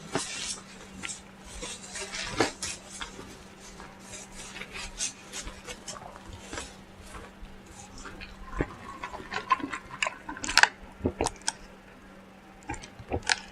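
Close-up eating sounds from a KFC fried-chicken meal: scattered crisp clicks and crackles of chewing, mouth smacks and handling of the food and its containers. A sharper, louder cluster comes about ten and a half seconds in.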